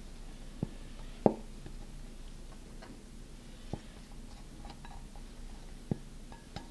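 Five short, sharp taps and clicks, the loudest about a second in, as meringue is scraped into a plastic piping bag standing in a stainless steel mug, the utensil knocking against the bag and mug rim.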